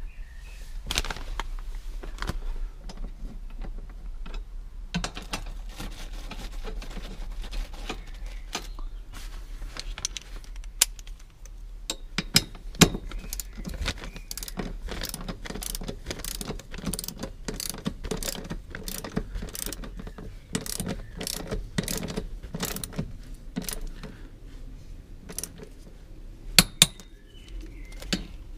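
Hand socket ratchet clicking in quick runs as a roll-cage mounting bolt is turned, with scattered metallic clinks of the socket and tools. The clicking is sparse in the first part and dense through the second half.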